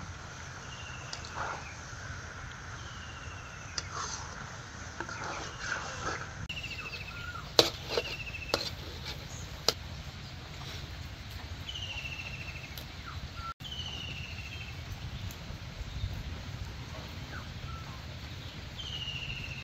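A metal spatula scrapes and clinks against an iron karahi as a thick vegetable curry is stirred, with a few sharp clicks partway through. A bird repeats a short falling call every second or two in the background.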